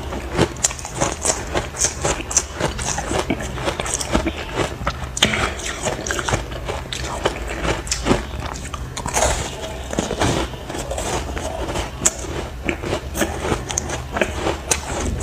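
Ice chunks coated in powdered matcha green tea being bitten and chewed, with dense, irregular crunching and cracking all through.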